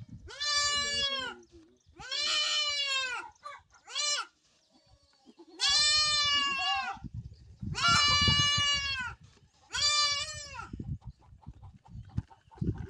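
Goat bleating over and over, about six loud, high-pitched calls of roughly a second each with short pauses between them.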